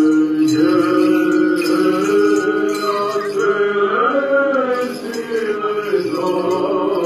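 Orthodox liturgical chant: voices singing a melody over a steadily held drone note.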